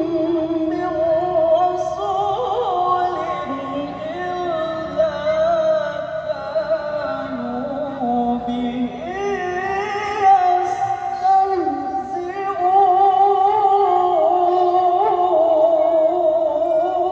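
A man's voice chanting Qur'anic recitation (tilawah) in long, ornamented melodic phrases with wavering held notes, amplified through a microphone and PA loudspeakers.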